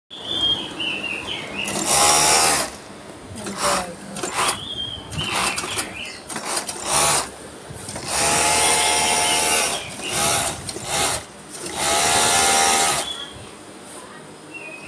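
Typical-brand industrial overlock (serger) machine running in repeated short bursts as the pedal is pressed and released: three longer runs of about a second and several shorter ones, each a fast motor hum with a wide hiss.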